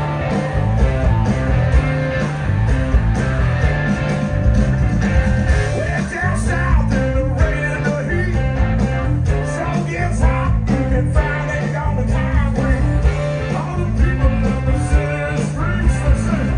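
Live blues-rock band playing loud: electric guitars over bass guitar and a drum kit, with a steady beat.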